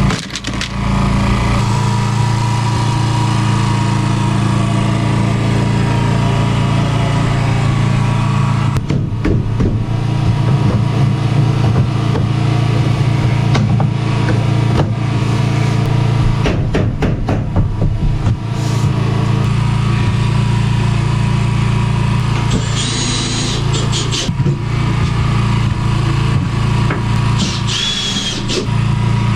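An engine running steadily at a constant speed, like a motor vehicle.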